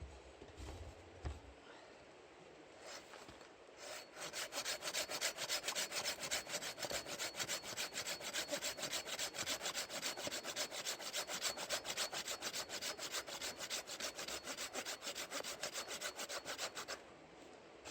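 Small hand saw cutting through firewood with quick, even back-and-forth strokes that start about four seconds in and stop shortly before the end, after a few light knocks.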